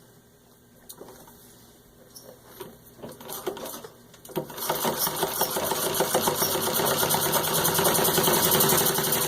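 Treadle-driven 1920 Singer 127-3 sewing machine stitching through six layers of denim. It makes a few slow, separate stitches, then from about four and a half seconds in runs at full speed in a fast, even patter, and stops suddenly at the end.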